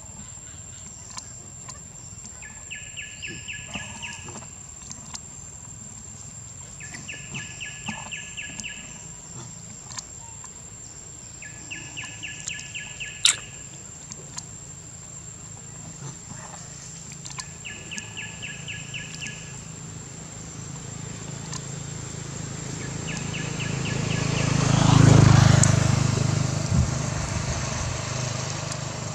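Outdoor ambience: a short, rapid trilling call repeats about every four to five seconds over a steady high whine. Near the end a vehicle approaches and passes, its rumble swelling and then fading.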